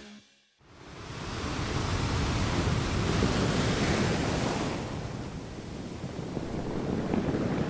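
Ocean surf: waves washing in as a steady rushing noise. It swells in about half a second after a brief silence, eases about five seconds in, and builds again near the end.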